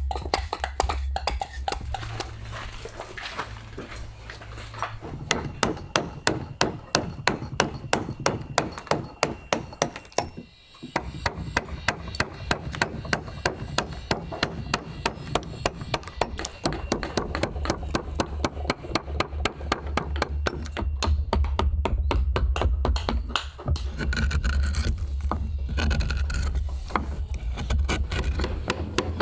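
Background music with a steady, even percussive beat over a low bass line that shifts in pitch, dropping out briefly about ten seconds in.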